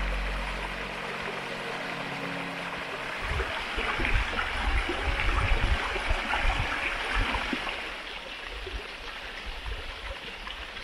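Water from a small waterfall running and splashing down rock ledges: a steady rushing hiss. From about three seconds in, low gusty buffeting on the microphone is the loudest part.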